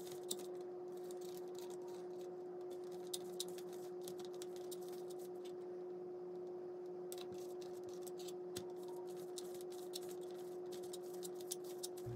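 Gummy candies on a plastic stick rolled and pressed in sugar powder in a plastic tray: light, irregular crackling and small clicks of sugar grains and plastic, thinning out briefly about halfway through when the stick is lifted. A steady low hum runs underneath.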